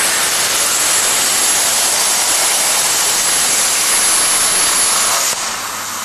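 Hypertherm MaxPro200 plasma torch cutting steel plate on a CNC water table: a loud steady hiss with a thin high-pitched tone. A little after five seconds in, the tone stops and the hiss drops to a quieter level.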